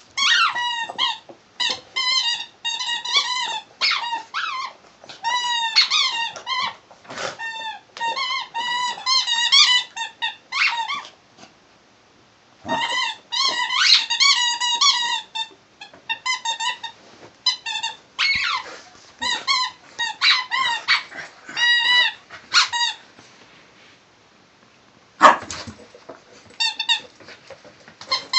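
A corgi chewing a squeaky toy, squeezing out rapid runs of high squeaks, several a second, with short pauses between the runs. There is one louder, sharper sound near the end.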